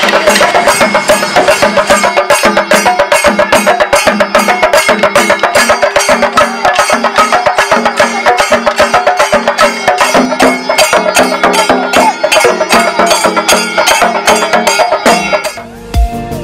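Chenda drums beaten with sticks in fast, even strokes, traditional Kerala percussion, over a repeating melody. About a second before the end the drumming breaks off and a deep electronic bass beat comes in.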